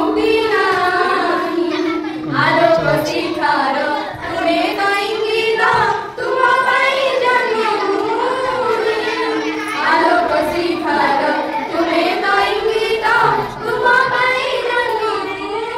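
A group of schoolgirls singing a song together into a microphone, their voices holding long sustained notes.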